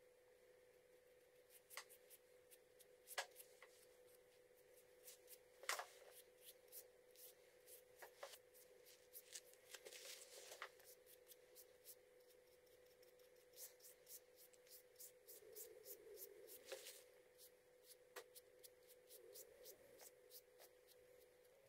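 A small paintbrush working finish onto a wooden draw knife handle: faint, irregular light clicks and short brushing scratches, over a steady faint tone.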